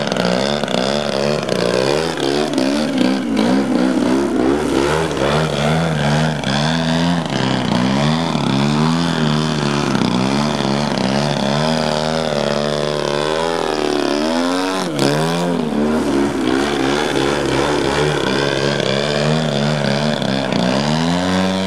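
Engine and propeller of a radio-controlled aerobatic model airplane in flight, the pitch rising and falling with throttle changes and fly-bys, with a deep dip and recovery a few seconds in and again about fifteen seconds in.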